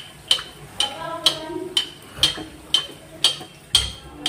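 Steel slotted spoon clinking against the rim of a steel kadhai, about two ringing taps a second, as hot oil is splashed over a bhatura frying in it.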